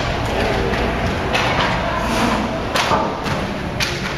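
Inline hockey play in a large indoor rink: several sharp knocks and clacks of sticks and puck over a steady background of voices.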